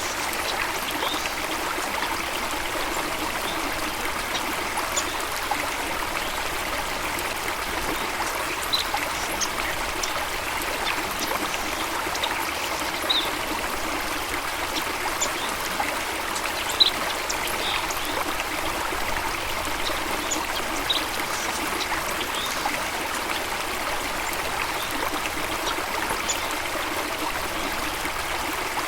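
Stream water running and trickling steadily, with short high splashy ticks scattered through it.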